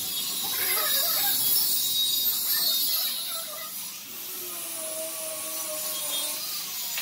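Felt-tip marker scratching along the edge of a template on a pine board: a rough, high hiss that eases off about three seconds in, while the pen is lifted, and comes back near the end. A faint steady hum with a couple of pitches sits underneath in the second half.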